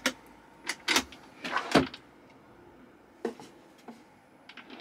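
Kitchen drawer in a Frankia Yucon campervan being pulled open: a few short knocks and clicks from the drawer and its runners, the loudest just under two seconds in, then a few light ticks near the end.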